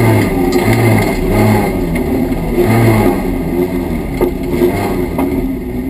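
Drift car's engine heard from inside the cabin, revved in several short swells over the first three seconds, then running more evenly and a little quieter.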